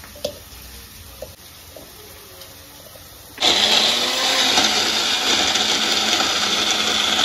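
Electric mixer grinder switching on suddenly about halfway through and running steadily, grinding chopped tomatoes into a purée. Before it, a few faint clicks of tomatoes being cut into the jar.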